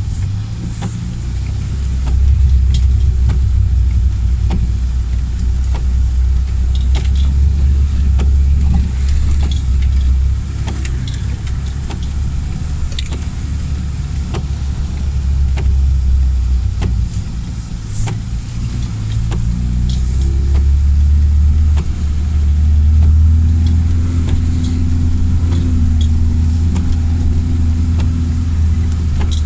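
Lada Niva's engine droning low inside the cabin while driving over a rough, muddy track. The drone swells about two seconds in, eases off a little past the middle, and grows again later on, with scattered sharp clicks and knocks throughout.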